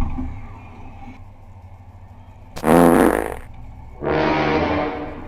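Two long, loud burps, the first about two and a half seconds in and the second about a second later, each lasting about a second.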